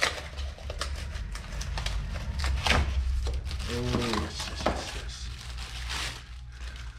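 Plastic packaging crinkling and rustling as a new tool's parts are unwrapped by hand, quieter near the end. A brief hum of a voice about four seconds in.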